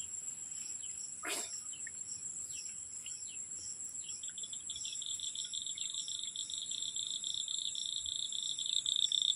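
Insects chirring steadily in a high-pitched drone. A second, somewhat lower insect drone joins about four seconds in and grows louder, and a single brief click comes a little over a second in.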